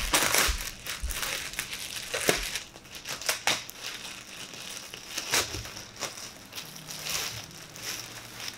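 A clear plastic packaging bag crinkling and rustling in irregular crackles as boxing gloves are worked out of it. The crackling is loudest in the first couple of seconds, then goes on more softly.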